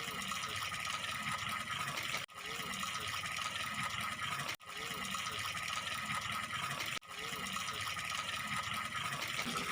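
Flowing water of a small stream, a steady rushing that repeats as a short loop about every two and a half seconds, each repeat separated by a brief cut-out.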